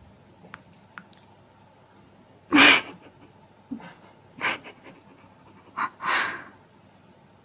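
A parrot making a few short, breathy hissing huffs, the loudest about two and a half seconds in, with a couple of faint clicks before them.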